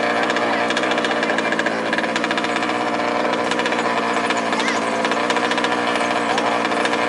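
Small two-stroke petrol engines of 1/5-scale off-road RC cars running, a steady rapid buzzing rattle.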